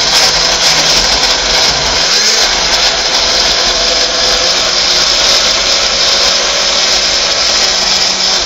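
Countertop blender running steadily, its motor and blades chopping boiled tomatillos, serrano chili, garlic and cilantro into a chunky salsa.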